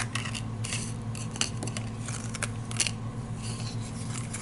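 Playing cards being handled: a scatter of short light snaps and rustles, a few each second, over a steady low hum.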